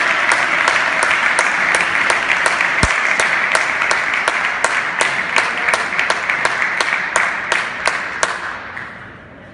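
Spectators applauding, with single loud claps standing out over the general clapping; the applause dies away about nine seconds in.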